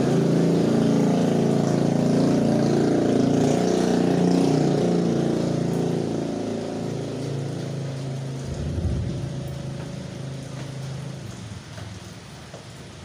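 A motor vehicle's engine running close by, loud at first, then fading away over the second half as it moves off. Under it is the steady hiss of heavy rain on a wet road.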